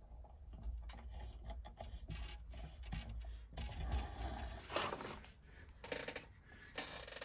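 Handling noise from the camera and things on a workbench being moved about: scattered clicks and light knocks, with rubbing scrapes. Two longer rustling scrapes come about five seconds in and near the end.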